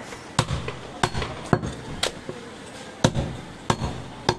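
A heavy butcher's chopping knife striking through goat ribs into a wooden log chopping block, about seven sharp chops, roughly one every half second to a second.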